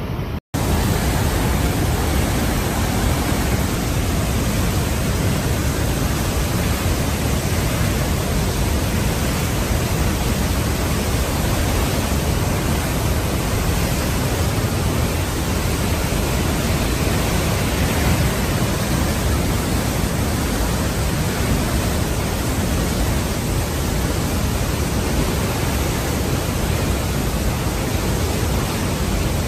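Murchison Falls on the Nile, a powerful waterfall heard close up: a steady, dense roar of crashing water, heaviest in the low end, broken by a momentary dropout about half a second in.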